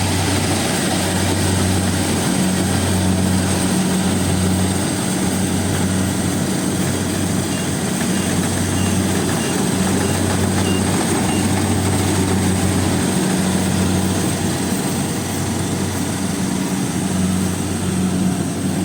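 Kubota combine harvester running steadily under load, its diesel engine and threshing machinery making a loud, even drone. A faint high beeping sounds in short runs now and then.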